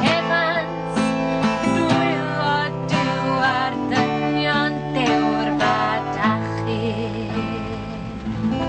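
Acoustic guitar strummed in a steady rhythm under a man's and a woman's voices singing a folk song in Welsh; about six seconds in the strumming stops and the last chord rings on while a voice holds a long wavering note.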